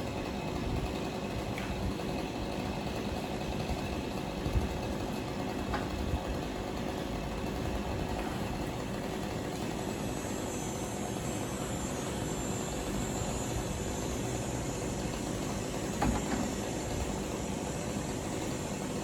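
An engine running steadily at a constant speed, with a few short knocks now and then.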